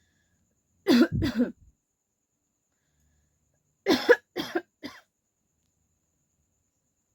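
A woman coughing deliberately rather than from illness: two coughs about a second in, then a bout of three more about three seconds later.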